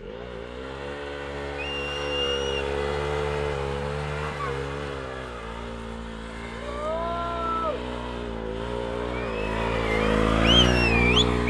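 KTM 390 Duke's single-cylinder engine revved hard and held at high revs as the rear wheel spins in the dirt, getting louder near the end. A few high sliding whistles sound over it.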